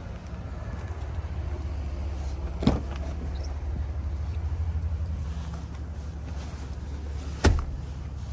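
Steady low rumble with two sharp knocks as a car's doors and interior are handled: one about three seconds in and a louder one about seven and a half seconds in.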